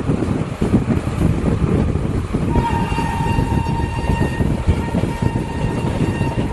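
Indian Railways superfast express train running through at full speed, the coaches and wheels rumbling loudly. About two and a half seconds in, the electric locomotive's horn sounds one long steady note that holds to the end.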